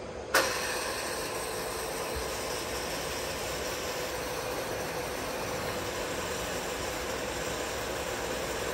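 Table feed drive of a WMW-Heckert universal milling machine switched on with a sharp click, then running steadily with a whine as the table travels lengthwise at feed speed.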